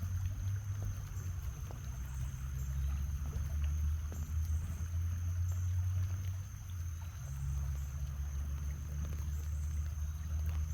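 Gusty wind rumbling on the microphone outdoors ahead of a thunderstorm, a steady low buffeting that dips briefly about six and a half seconds in.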